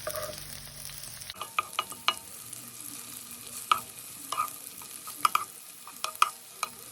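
Shallots and sun-dried tomatoes sizzling as they sauté in olive oil in a pan, while a utensil stirs them, with irregular knocks and scrapes against the pan.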